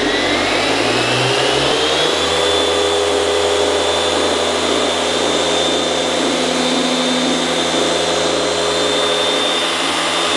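Dynabrade DB8 forced-rotation (gear-driven) orbital polisher running on a paint panel with a microfiber pad. Its motor whine rises in pitch over the first two seconds as it comes up to speed, then holds steady.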